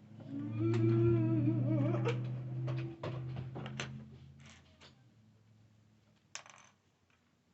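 A person humming a wavering tune for about five seconds, over light clicks and taps of plastic building pieces being handled, with a short clatter of pieces near the end.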